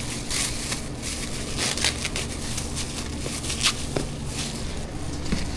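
Plastic food packaging crinkling and crackling as it is handled, in irregular bursts, over a low steady hum.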